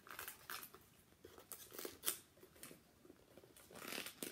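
Plastic toy packaging being handled and opened by hand: intermittent faint crinkles and small clicks, growing louder and busier near the end.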